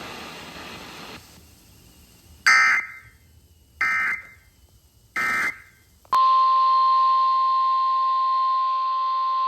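Three short Emergency Alert System digital data bursts, evenly spaced about 1.3 s apart: the end-of-message code closing a warning. About six seconds in, a steady single-pitch alert tone near 1 kHz starts and holds: the weather radio's 1050 Hz warning alarm tone opening the next alert.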